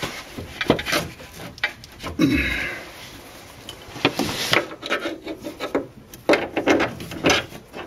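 Hand wrench on a nut at a car's front steering knuckle: repeated short ratcheting clicks and metal-on-metal scraping as the nut is turned in short strokes.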